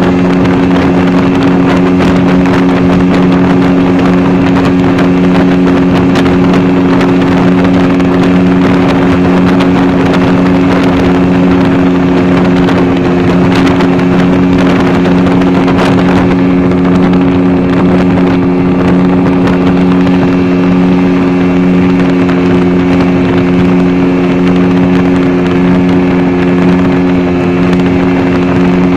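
A boat's engine running steadily under way: a loud, constant drone at an unchanging pitch, over a steady rushing hiss of water spray along the hull.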